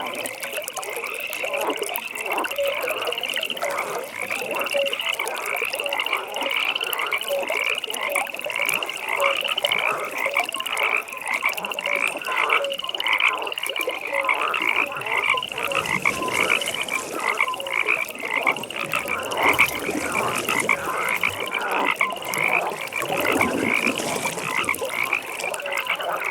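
A chorus of many frogs calling together without a break, their calls overlapping. Short high-pitched trilled calls repeat over and over, above lower croaks.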